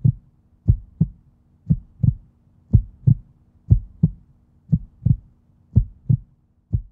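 Heartbeat sound effect: pairs of low thumps repeating steadily about once a second, over a faint steady hum.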